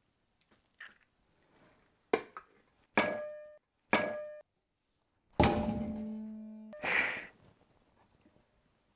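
Eggs being cracked on a metal rim: three sharp taps of eggshell about a second apart, each leaving the metal ringing briefly, then a louder knock with a longer ring about five and a half seconds in, and a short rustling burst soon after.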